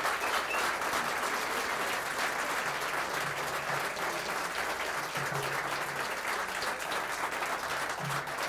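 An audience applauding steadily, the clapping slowly fading.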